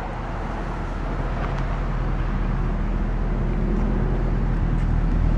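2008 Mercedes-Benz E63 AMG's hand-built 6.3-litre V8 idling through its quad AMG exhaust outlets, a steady low grumble. It grows steadily louder as the microphone closes in on the tailpipes.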